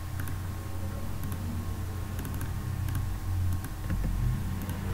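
Computer keyboard keys tapped in scattered clicks, a few at a time with pauses between, over a steady low hum.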